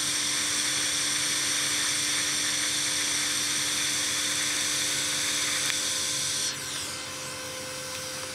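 TIG welding arc from a Vevor 210A inverter welder on steel plate: a steady hiss with a high whine that dies away about six and a half seconds in, leaving a quieter hum.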